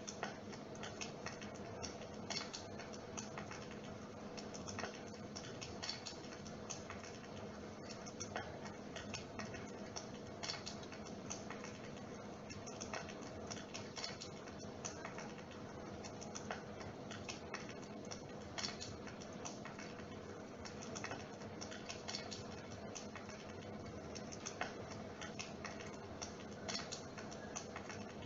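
Dimplex mist-effect electric fire running: a steady low hum overlaid by irregular, rapid crackling clicks like burning wood.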